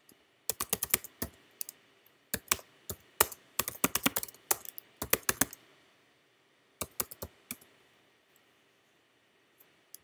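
Typing on a computer keyboard: quick runs of keystrokes in several bursts, with a pause near the end.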